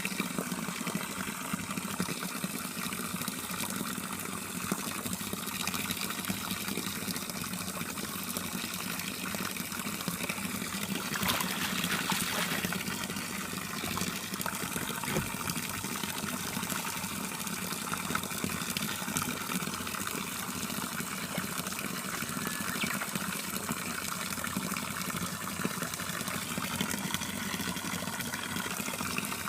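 Water from a homemade waterfall pouring steadily into a dog's pool, with a stretch of louder splashing about eleven seconds in.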